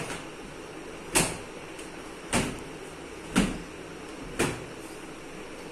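Five sharp knocks about a second apart, then they stop.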